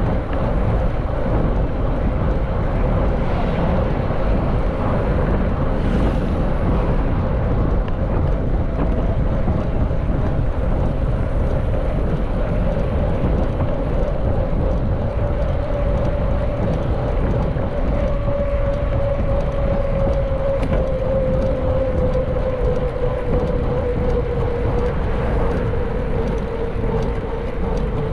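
Wind buffeting the microphone of a mountain bike rider on the move, with a steady hum that drifts slowly lower in pitch over the second half.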